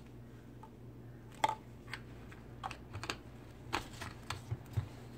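Scattered light clicks and taps, about a dozen, irregularly spaced and sharper in the second half, over a faint steady low hum.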